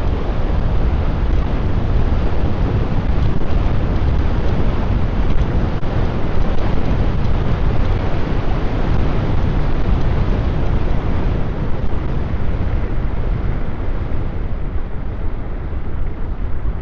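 Steady wind rushing and buffeting over a clip-on microphone while riding an electric scooter at speed, heavy in the low end, with tyre and road noise underneath.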